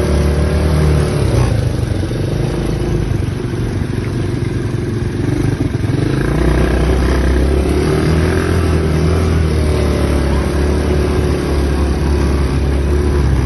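ATV engine running under way, its pitch rising and falling with the throttle. It eases off for a few seconds, then picks up again about six seconds in.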